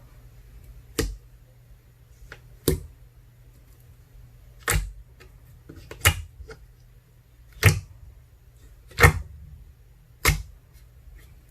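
Water-jelly slime, made of ice slime mixed with soothing gel, being played with, giving seven sharp pops about one to two seconds apart, with a few fainter ticks between them.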